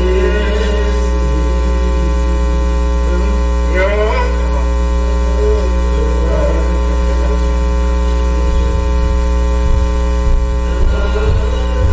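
Loud, steady electrical mains hum and buzz in the audio feed. Faint voices rise through it a couple of times.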